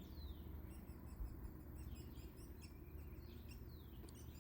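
Faint bird chirps: a string of short notes, each sliding down in pitch, repeating at uneven intervals over a faint low background rumble.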